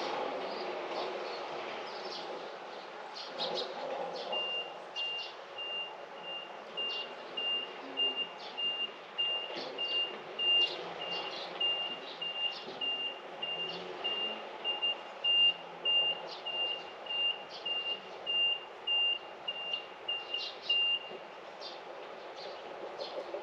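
A vehicle's reversing alarm beeping at a steady rate of about two high, single-pitched beeps a second. It starts a few seconds in and stops near the end, with birds chirping and a steady low rumble of background noise throughout.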